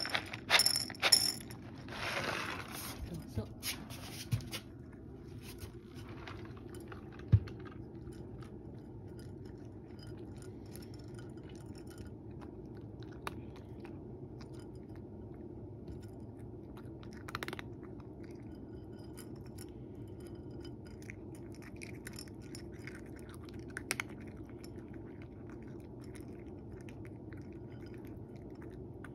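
Dry cat kibble poured from a carton onto a ceramic dish, rattling for the first couple of seconds. Then a cat crunches the kibble from the dish, with faint scattered crunches and one sharp knock about seven seconds in.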